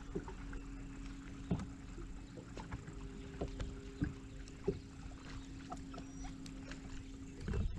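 Bass boat's electric trolling motor humming steadily, then switching off near the end, with scattered light knocks.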